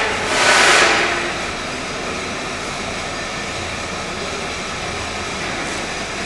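Dongnam textile compactor running with a steady mechanical drone over a constant low hum. A louder rushing swell, with a trace of pitch in it, rises and fades within the first second.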